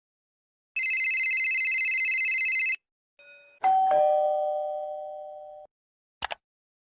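A doorbell: about two seconds of steady electric ringing with a fast flutter, then a two-note ding-dong chime that steps down in pitch and fades away. Two short clicks follow near the end.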